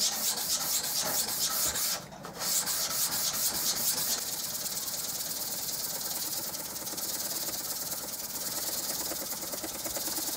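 Back of an 18 mm Stanley chisel rubbed quickly back and forth on wet 1200-grit wet-and-dry paper laid over a diamond plate, a rhythmic scratchy hiss: polishing the back edge to 1200 grit. The strokes stop briefly about two seconds in, and from about four seconds on they blend into a steadier hiss.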